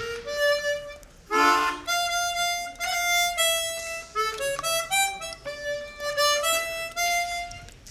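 Harmonica playing a slow melody of held notes, with a short chord about a second and a half in.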